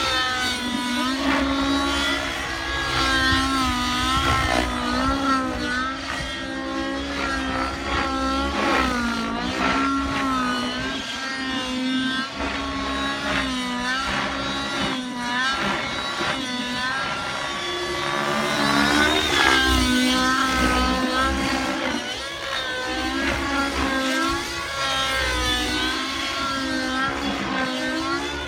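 Synergy N7 nitro RC helicopter flying aerobatics: its engine and rotor note keeps rising and dipping as the load changes. The note sweeps sharply upward about nineteen seconds in.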